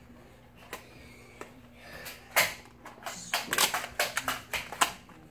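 Plastic clicks and clacks of a Nerf blaster being worked by hand. The clicks come as a quick, irregular run starting about two seconds in, the sharpest one shortly after they begin.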